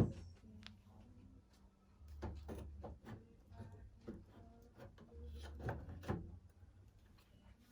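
Car door parts being worked by hand during removal of a Nissan 350Z interior door handle: a sharp click at the start, then clusters of knocks and clicks about two seconds in and again near six seconds.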